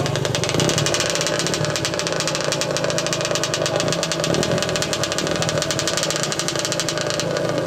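Several small motorcycle engines idling together on a dirt-track start line, running steadily while the riders wait for the flag.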